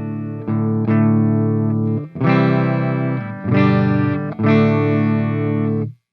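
Electric guitar through an overdrive pedal, playing distorted chords that are struck and left to ring, with about six strums. The last chord is choked off abruptly near the end.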